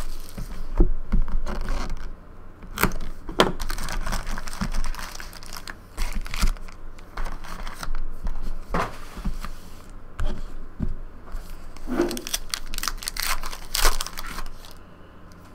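Plastic shrink-wrap and trading-card pack wrappers being torn open and crinkled, with irregular crackles and rustling as the cards are handled.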